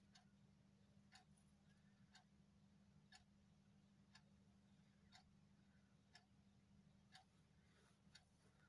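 Faint ticking of a clock, one tick a second, over a low steady hum.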